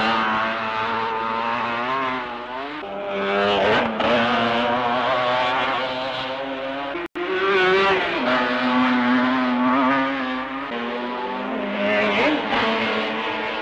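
Racing sidecar outfits' engines at full race speed, pitch rising and falling as the machines pass and change gear, with several engines heard at once. The sound cuts out for an instant about seven seconds in, a break in the old film soundtrack.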